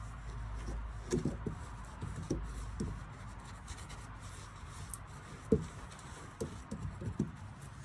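Scraping and rubbing by hand inside a gas forge as it is relined, worked with an old kitchen utensil, with scattered light knocks and one sharper knock about five and a half seconds in.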